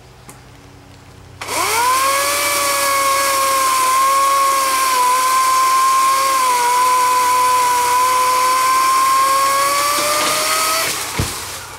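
Greenworks 18-inch corded electric chainsaw switched on about a second and a half in. Its motor whines up to speed within a moment and runs steadily, the pitch sagging slightly a few times. Near the end the pitch rises, then the saw is switched off and quickly winds down.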